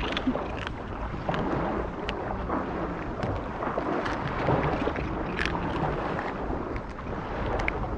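A cat crunching dry kibble, a run of short, crisp, irregular crunches, over steady wind noise and the sea at the shoreline.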